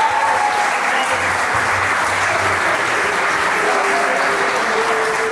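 Crowd of guests applauding steadily, with some voices and cheers over the clapping.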